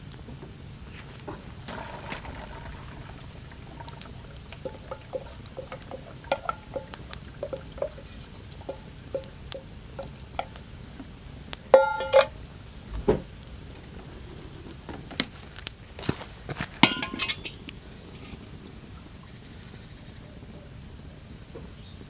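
Enamel cooking pot and metal cookware being handled over a wood fire: scattered light clicks and knocks, then a loud ringing metallic clink about halfway through as the pot is set down, a dull thud just after, and another few ringing clanks a few seconds later.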